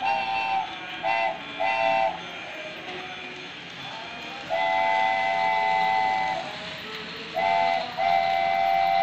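Electronic steam-whistle sound of a battery toy steam locomotive, a chord of tones sounded three times briefly, then once long for about two seconds, then twice more near the end. Under it runs a steady background noise from the moving toy train.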